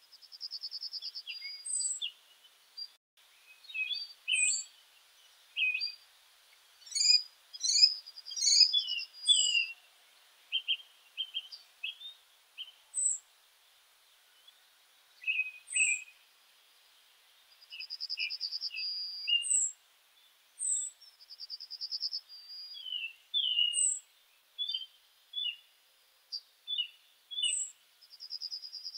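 Several small birds chirping and singing. There are scattered short high chirps, a quick trilled phrase that comes back every few seconds, and many brief lower notes.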